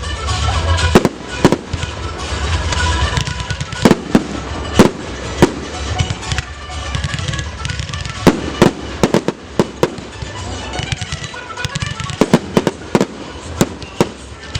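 Fireworks display: a dozen or more sharp bangs of bursting shells at irregular intervals, coming thicker in the second half, over a low rumble.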